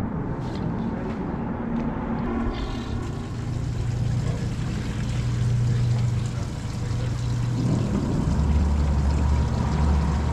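A fishing boat's motor running with a steady low hum. Its pitch steps down about two seconds in and again about eight seconds in, as the motor's speed changes.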